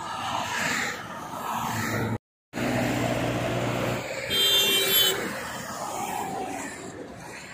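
Motorway traffic going by, a steady rush of passing cars. The sound cuts out completely for a moment about two seconds in, and a short high-pitched tone sounds a little after four seconds.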